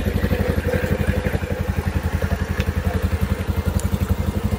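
An engine idling with a rapid, even low pulse.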